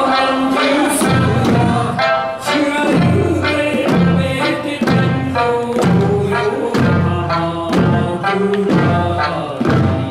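Eisa dance music: an Okinawan folk song with singing played through a loudspeaker, with taiko drums struck in a steady rhythm along with it.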